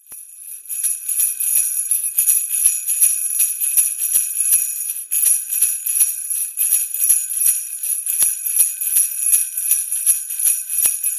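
Sleigh bells jingling, shaken in a steady rhythm of about three shakes a second, fading in over the first second.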